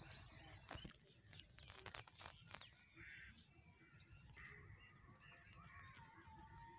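Near silence: faint rural outdoor ambience with a few soft clicks in the first three seconds and faint distant calls, one held steady near the end.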